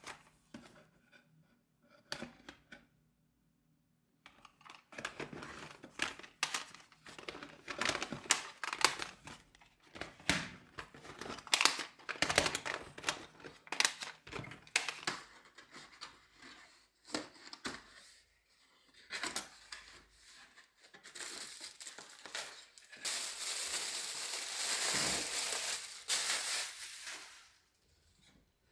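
Plastic cassette tape cases clicking and clacking against each other as a hand sorts through a box of tapes. In the later part comes a longer, louder stretch of crinkling, rustling plastic packaging being handled.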